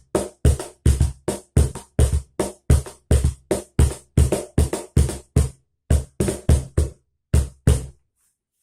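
Cajón played by hand in a steady rhythm of about four strokes a second, with deep bass tones between sharper hits. Short pauses break the rhythm in the second half, and the playing stops about a second before the end.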